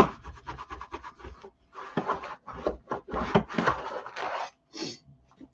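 Plastic scraper rubbed back and forth over cardstock, burnishing it down onto chipboard. Quick, short scraping strokes come first, then slower, longer sweeps.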